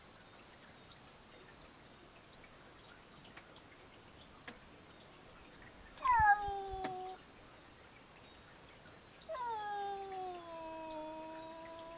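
Domestic cat meowing twice. Each call starts high and slides down in pitch: a short meow about halfway through, then a long, drawn-out yowl a few seconds later that holds a steady pitch.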